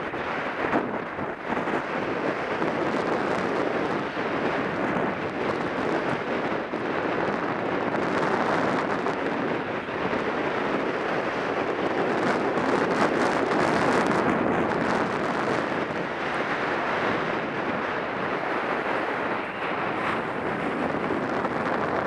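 Wind rushing over the microphone of a skier's camera, mixed with the hiss and scrape of skis on packed piste snow, which turns harsher for a couple of seconds around the middle.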